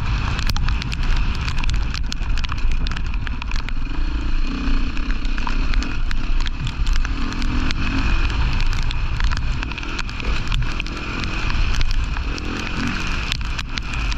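Off-road rally motorcycle engine running with its pitch rising and falling, under heavy wind rumble on the microphone. Frequent sharp clicks and knocks, typical of stones and ruts on a rough track, run through it.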